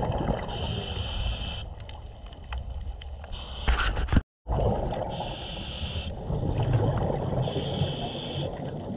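Underwater sound picked up by a GoPro in its housing: a low, muffled rumble of moving water, with three hissing, bubbling bursts about a second long, typical of a scuba diver's regulator exhaling. The sound cuts out completely for a moment a little past four seconds in.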